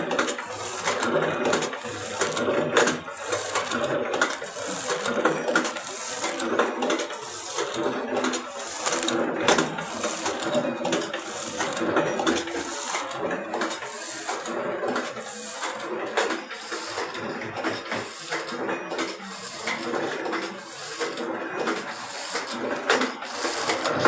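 Snack packing machine running, a steady mechanical clatter with many close-spaced clicks and clinks.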